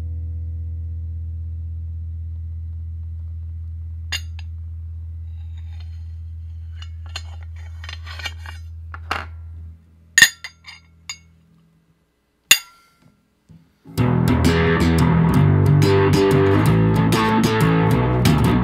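Bronze spinning top on its silicon nitride ceramic tip, spinning with a steady low hum that slowly fades, with faint ticks as it slows. After about ten seconds the hum stops and the top falls over with two sharp metallic clinks about two seconds apart. Guitar background music starts near the end.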